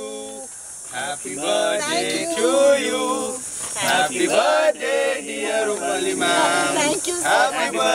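A group of people, mostly men's voices, singing a birthday song together without any instruments.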